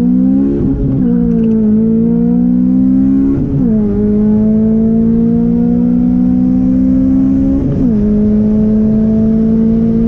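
Honda Civic Si's 2.0-litre four-cylinder engine pulling through the gears, heard from inside the cabin. The engine note climbs steadily and drops back at each upshift: about a second in, about three and a half seconds in, and near eight seconds in.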